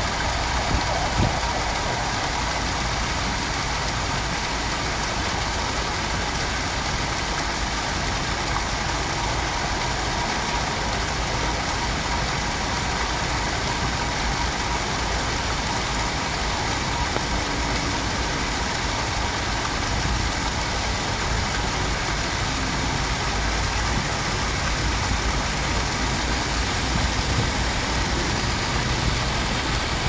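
Small rock waterfall splashing steadily into a shallow garden pond, an even rushing of falling water.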